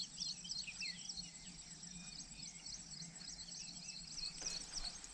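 Faint outdoor ambience of small birds chirping over and over, with a steady high-pitched insect trill running underneath.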